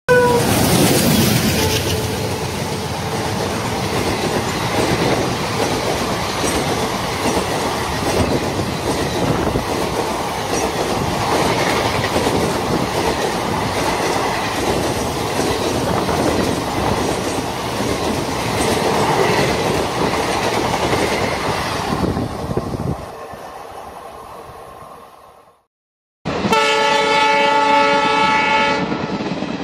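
A toy diesel locomotive and its coaches running on plastic track, making a steady rattling clatter that fades away about 23 seconds in. After a short gap, a loud horn sounds in one long blast of several steady tones near the end.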